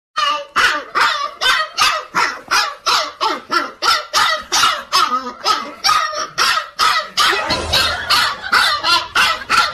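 An animal calling over and over in a fast, even series, about two and a half loud calls a second without a break.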